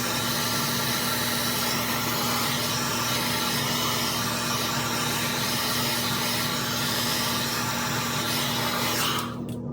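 Handheld hair dryer blowing steadily, switched off near the end.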